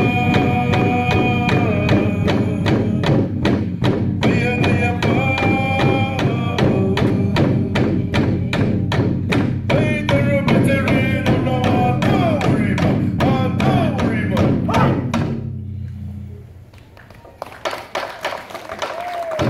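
Torres Strait Islander dance music: voices singing held, sliding notes over a fast, steady drum beat. About three-quarters of the way through the music drops away for a couple of seconds, then the singing and drumming start again.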